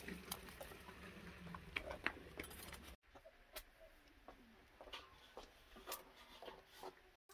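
Faint, scattered light taps and rustles of someone moving about and handling things, with footsteps on a dirt floor.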